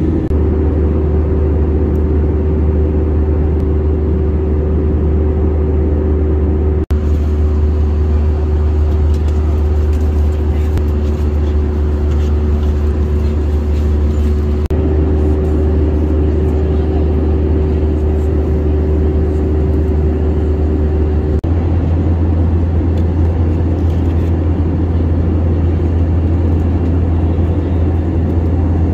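Airliner cabin noise in cruise: the jet engines and airflow make a steady, loud low drone with a faint hum over it. It breaks off for an instant twice, about 7 and 21 seconds in, and carries straight on.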